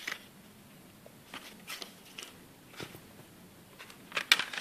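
Handling noise of a CD album: scattered rustles and light taps from a folded paper insert and the plastic jewel case, with a louder cluster of sharp plastic clicks about four seconds in as the case is handled.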